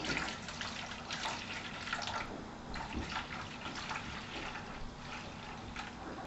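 Water being poured slowly from a measuring cup into a container on a scale, an uneven stream splashing into the water already in it, for weighing the water to mix with dental stone.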